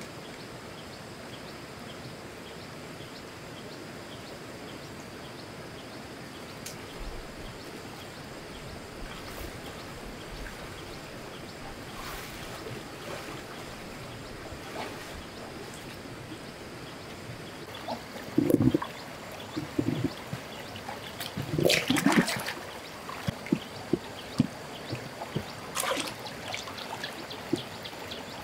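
Muddy, flood-swollen shallow stream running steadily. In the last third, loud irregular splashing and sloshing as someone wades in the water and handles rocks.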